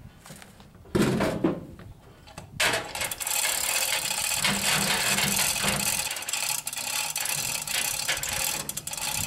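A hand-pulled chain hoist on a wooden gantry is being worked to take up the lift on a pickup bed: the chain rattles and the pawl ratchets in a rapid run of clicks from a few seconds in. Two loud knocks come about a second in.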